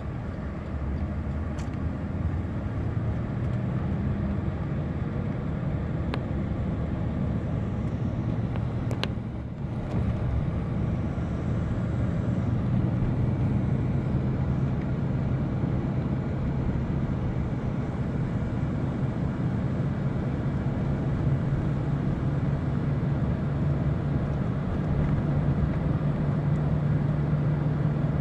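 Engine and road noise heard from inside a moving car, a steady low hum that rises slightly in pitch near the end. A couple of faint clicks are heard early on and about nine seconds in.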